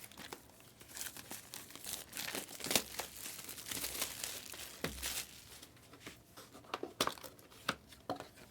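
Plastic wrapping crinkling and tearing as a trading-card box is unwrapped and opened: a dense stretch of crackling, then scattered sharp crinkles and clicks near the end.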